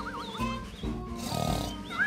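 Animated dinosaur cries with a wavering, wobbling pitch, over background music.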